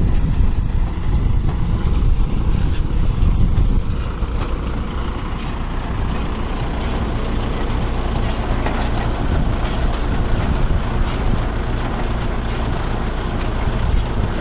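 Tractor engine running steadily while driving a hay baler, with scattered knocks from the baler's mechanism.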